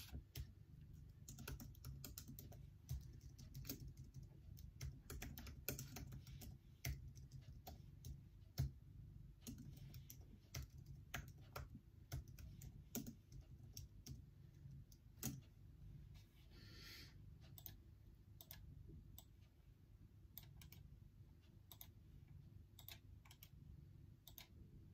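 Faint typing on a MacBook laptop keyboard: irregular key clicks, denser in the first half and sparser later, over a low steady hum. A brief soft rustle comes a little past the middle.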